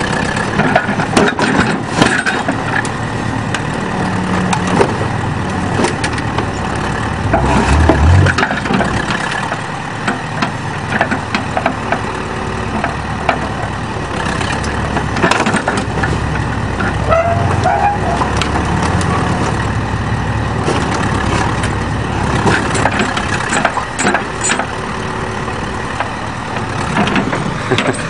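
Tractor backhoe's engine running steadily while the boom and bucket work, with scattered clanks and crunches of sheet metal as a wrecked van is crushed.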